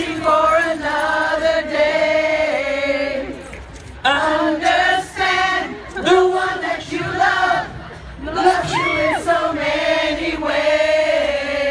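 Many voices singing a melody together, with little instrumental backing, in phrases of a second or two with short breaks.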